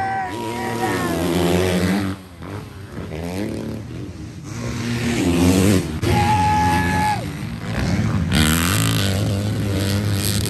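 Motocross dirt bikes riding the track, their engines revving up and down through the gears, with one held high-revving note near the start and another about six seconds in.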